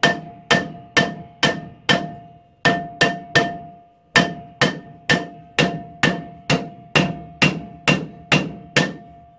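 Hammer striking a Ford Courier's rear steel brake drum, about two blows a second with one short pause, each blow leaving the drum ringing. The drum is stuck on the hub and is being knocked to free it.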